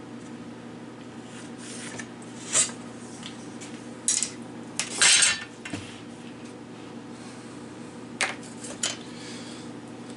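Metal tools or hardware clinking and clattering as they are handled on a workbench, in several sharp knocks with the loudest cluster about halfway through, over a steady low hum.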